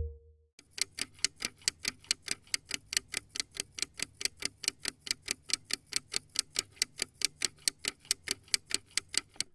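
Clock ticking in a fast, even rhythm of about five sharp ticks a second, starting about half a second in and stopping abruptly near the end.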